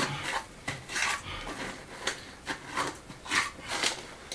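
Steel trowel scraping and scooping lime mortar: a run of short, irregular scrapes and clinks, about a dozen strokes.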